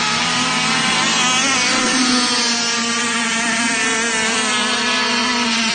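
Several radio-controlled racing boats speeding across the water, their small engines buzzing at high revs, the pitch rising and falling as the boats pass and turn.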